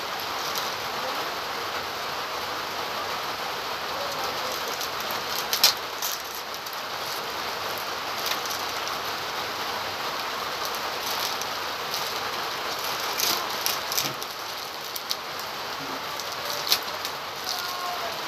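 Steady rain hissing, with a few short crinkles of a plastic fish bag being handled, the loudest about five and a half seconds in and around thirteen to fourteen seconds.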